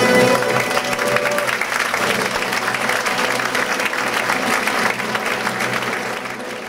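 Audience applauding, breaking in as the orchestra's final held chord dies away in the first second or so; the clapping fades out near the end.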